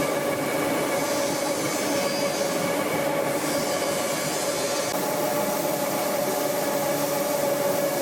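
ECOMILL 1700 multigrain roller mill running steadily while grinding proso millet into flour: an even mechanical hum with a steady whine, running trouble-free.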